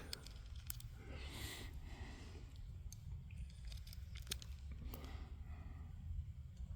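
Quiet background with a steady low rumble, a few faint clicks and a soft breath about a second and a half in; no shot is fired.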